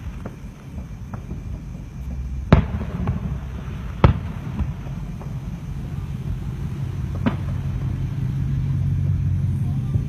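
Aerial fireworks bursting: two loud sharp bangs about a second and a half apart, a softer bang a few seconds later, and scattered smaller pops, over a low rumble that grows toward the end.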